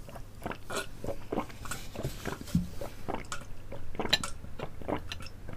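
Close-miked mouth sounds of drinking and chewing: irregular small wet clicks and smacks, with swallows from gulping a glass of juice.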